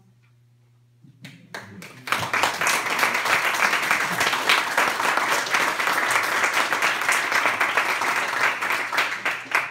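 Audience applauding at the end of a poem: a few scattered claps at first, swelling about two seconds in to steady applause that dies away near the end.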